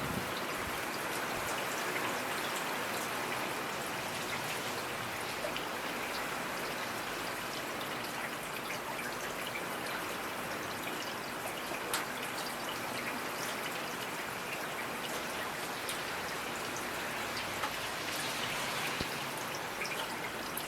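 Steady rainfall: an even hiss of rain with scattered individual drops ticking over it, one sharper drop about halfway through.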